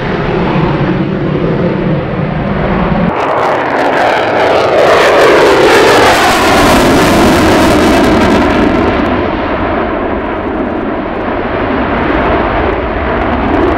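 Fighter-jet noise. For the first three seconds it is an F-22 Raptor in afterburner. Then, after an abrupt change, an F-35 Lightning II's single F135 engine in afterburner passes by, loudest around the middle with a sweep falling in pitch, and eases off a little toward the end.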